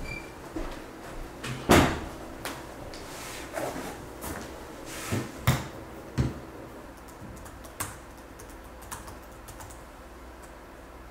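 Scattered knocks, bumps and rustles of things being handled and moved, the loudest knock just under two seconds in, followed later by a few sparse soft clicks of laptop keys being typed.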